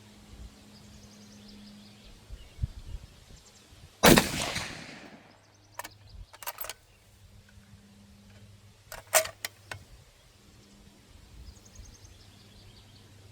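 A single rifle shot from a custom 25 GT rifle with a bare muzzle, loud and sharp, about four seconds in, with its report trailing off over about a second. Several sharp clicks follow in two short clusters.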